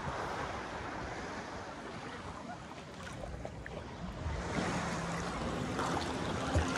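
Sea waves washing in the surf. A faint, low, steady hum joins in over the last two seconds or so.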